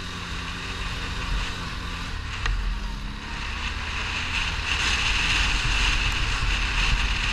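ATV engine running while the quad rides over loose volcanic sand and gravel, with wind hiss on the microphone that grows louder about halfway through as the sound rises overall.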